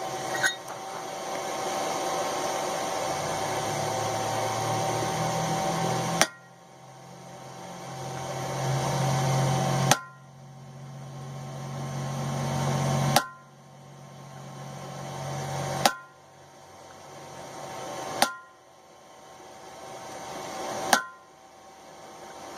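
Hammer striking a chisel to cut a groove down the side of a railroad spike: six sharp ringing metal strikes, roughly one every three seconds, starting about six seconds in after a steady hiss.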